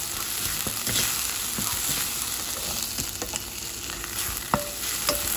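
Chopped garlic, shallot and red chilies sizzling steadily in hot olive oil in a wok, stirred with a spatula that scrapes and clicks against the pan. A sharper knock of the spatula comes about four and a half seconds in.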